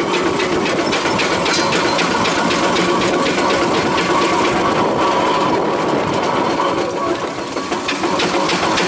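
Steam roller's engine working as the roller drives slowly: a quick, even mechanical beat of the motion work and exhaust, briefly easing about seven seconds in.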